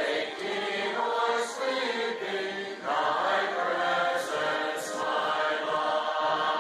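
Large congregation singing a hymn together: many voices holding long sung notes in phrases, with a brief break between phrases about three seconds in.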